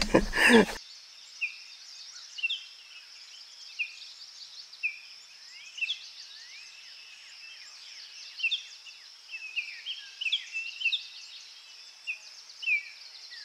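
Birds chirping in many short whistled calls, some sliding downward in pitch, over a steady high-pitched insect drone. The sound is thin, with no low end.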